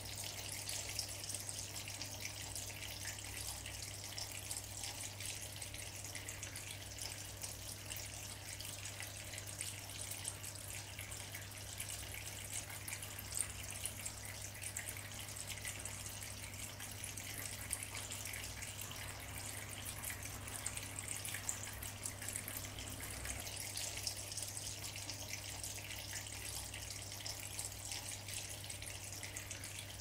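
Small tabletop water fountain running: a thin stream of water falling and splashing steadily into a shallow basin, with a steady low hum underneath.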